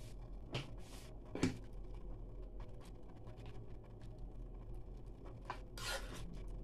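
A utensil stirring beef broth in a coated cooking pot, giving a few short scrapes and knocks against the pot, the sharpest about a second and a half in and two more near the end, over a faint steady low hum.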